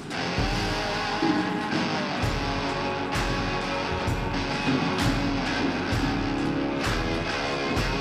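Background music: a rock track with strummed electric guitar and a steady beat.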